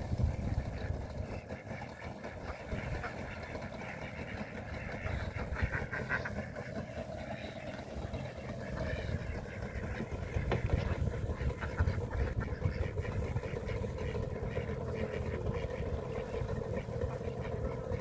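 A small boat's motor running steadily.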